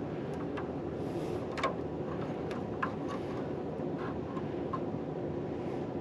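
A heating system running, heard as a steady low drone, with scattered light clicks and ticks as thermostat wires are handled at the zone control board.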